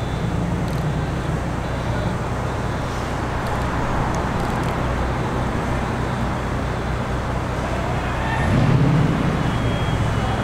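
Steady low hum and rumble of outdoor traffic and machinery, with a brief louder swell about eight and a half seconds in, like a vehicle passing close.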